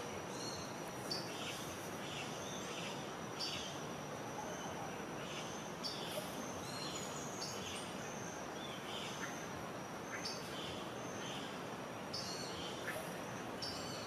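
Birds calling with short high chirps, irregularly, about once a second, over a steady thin high tone and an even background hiss.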